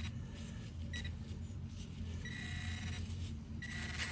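Garrett Pro Pointer pinpointer beeping in four short bursts of a steady high tone as it is probed through loose dirt, signalling metal close to its tip. The third burst is the longest. A low steady rumble runs underneath.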